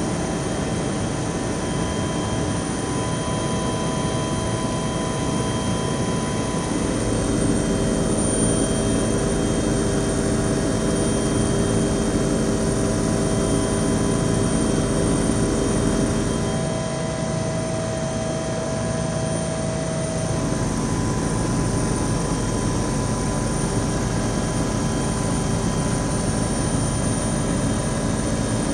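Aircraft engine and cabin noise heard from inside the cabin in flight: a steady drone with several held tones, slightly louder from about a quarter of the way in and dipping briefly a little past the middle.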